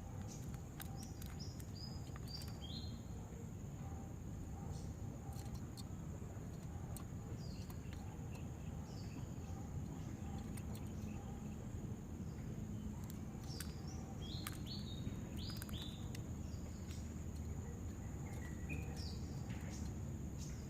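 Outdoor ambience: a steady high insect drone, with a small bird giving runs of short, falling chirps in a few bursts over a low background rumble.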